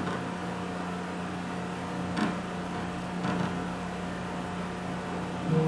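Steady low electrical hum under faint room noise, with two faint taps about two and three seconds in.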